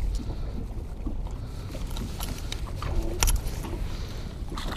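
Steady low rumble of wind and choppy lake water around an open boat, with a few short clicks and knocks about two to three seconds in.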